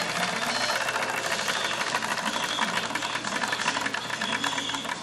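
Inderle IDL-4U3 car carpet overedge sewing machine running at speed, a fast, steady mechanical rattle of stitching.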